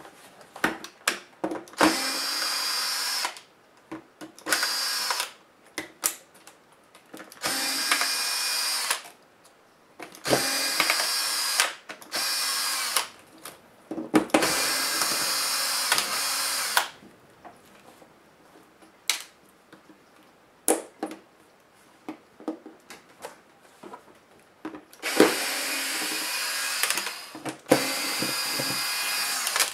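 Cordless power screwdriver running in about seven short spells of one to two seconds each, backing screws out of a laptop's display assembly. Light clicks and taps of handling come between the runs, with a longer stretch of only clicks in the middle.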